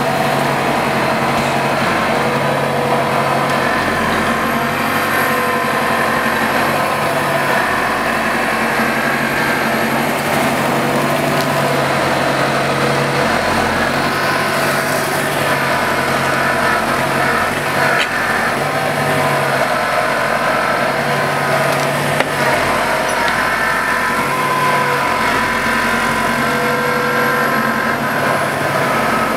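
Valtra N121 tractor's diesel engine running steadily as it pulls a loaded, track-fitted forestry trailer through snow; its note shifts slightly every few seconds.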